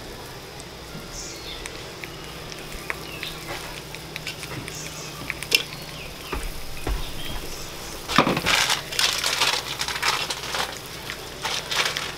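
Food sizzling on a hot Blackstone flat-top griddle as pancake batter is poured onto it: a low sizzle with scattered small clicks, turning into a louder patch of crackling about eight seconds in.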